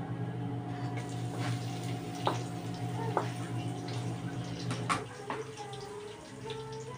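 Sliced onions and pork sizzling in hot oil in a wok while a wooden spatula stirs them, knocking against the wok a few sharp times.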